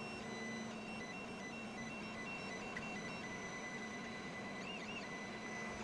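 Stepper motors of a self-built Voron 1.8 3D printer whining as the toolhead moves to print the first layer: high tones that start and stop with each move, and a brief rising-and-falling whine near the end, over a steady hum. The motors are salvaged from a Kywoo Tykoon Max and quite noisy.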